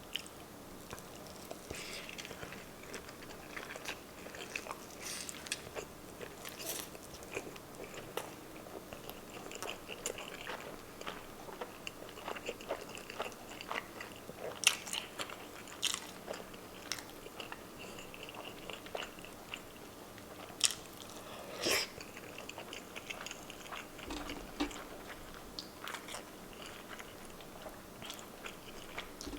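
Close-miked eating: a person biting and chewing a mouthful of corned beef hash, beef tapa and pork tocino, with wet chewing and crunchy bites. Several sharper, louder crunches come in the middle.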